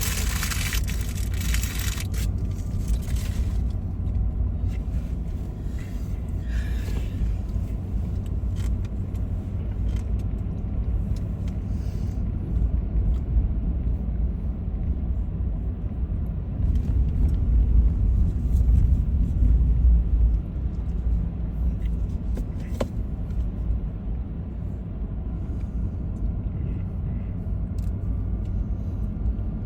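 Car engine and road rumble heard from inside the cabin while driving, a steady low drone that grows louder for a few seconds past the middle.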